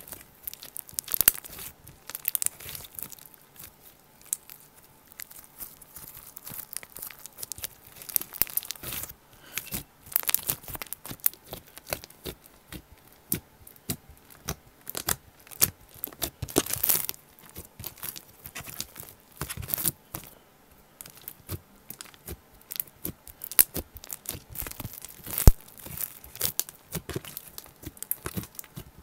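Slime being squished and stretched by hand close to a microphone for ASMR: irregular sticky crackles and clicks that come in bunches with short pauses between them.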